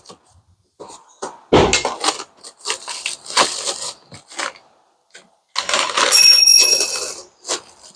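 Crumpled kraft packing paper and a plastic bag rustling and crinkling in a cardboard parts box as it is rummaged by hand, with a dull thump about one and a half seconds in and a longer, denser crinkle near the end.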